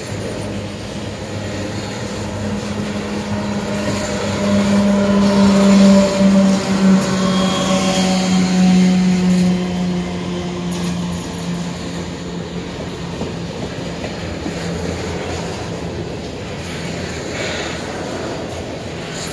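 Empty covered hopper grain cars rolling past with a steady rumble and rattle of wheels on rail. A humming whine swells a few seconds in, is loudest near the middle and then fades.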